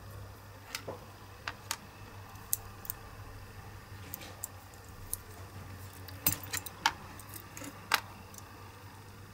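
Small diecast metal parts of a Lesney Matchbox Aston Martin toy car clicking and clinking as it is taken apart by hand: the body, wheels and axles tap against each other and the mat. About a dozen sharp ticks come at irregular intervals, with the loudest few close together near the end, over a low steady hum.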